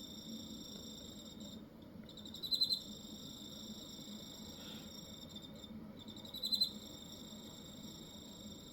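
Cricket singing: a steady high-pitched trill made by the wings rubbing together. It breaks off briefly twice, and each time it is followed by a short, louder burst of rapid pulses, about two and a half seconds in and again about six and a half seconds in.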